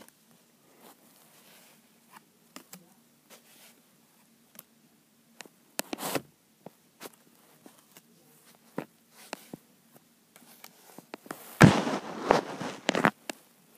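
Football trading cards being handled and spread out: scattered light clicks and taps, then a louder rustling scrape with a few knocks about twelve seconds in.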